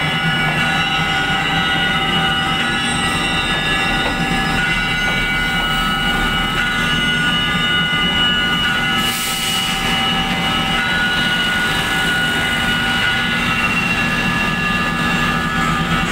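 Diesel railcar train moving slowly in reverse, its wheels squealing in a steady, unchanging high-pitched chord over the low running of the engines. A short hiss sounds about nine seconds in, and the squeal stops just before the end.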